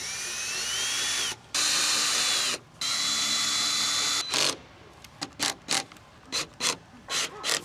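Power drill running in three short bursts, its motor whine rising as it spins up on the first, followed by a series of light clicks and knocks.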